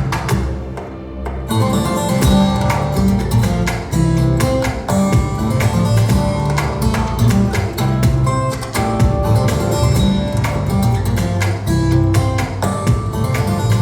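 Acoustic guitar music played back over Børresen Acoustics hi-fi loudspeakers, with quick plucked and strummed notes; after a brief lull the piece starts about a second and a half in.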